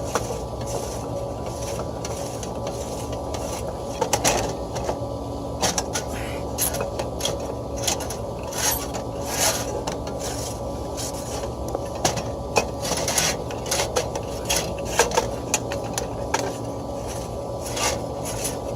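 Irregular metal scrapes and clicks from hand tools and parts being worked on a seized fan motor shaft. A steady hum runs underneath.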